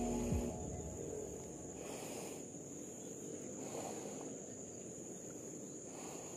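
Insects, cricket-like, keeping up a steady high-pitched trill over faint outdoor background noise. Music stops about half a second in.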